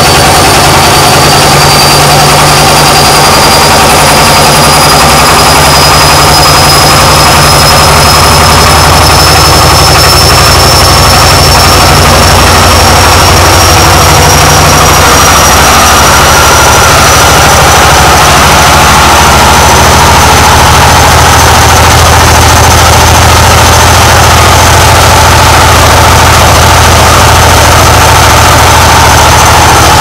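Old Arçelik front-loading washing machine running loud in its spin, with a steady low hum and a high motor whine that climbs slowly as the drum speeds up.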